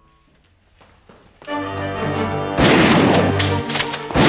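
Background music starting suddenly about a second and a half in, with loud crashing hits about a second later and again near the end.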